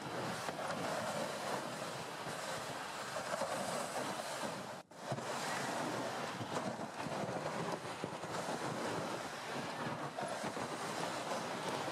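Steady rushing, crunching noise of a small tracked vehicle travelling over snow, mixed with wind on the microphone; it cuts out for a moment about five seconds in.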